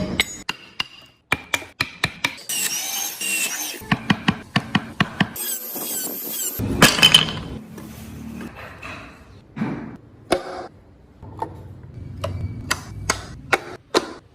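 Woodworking tool sounds: a quick series of sharp knocks and taps, with two short high-pitched bursts of a power tool, each about a second long, early in the sequence.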